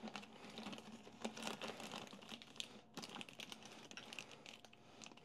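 Plastic culture bag crinkling and crackling in quick, irregular small clicks as it is worked down into its culture tube.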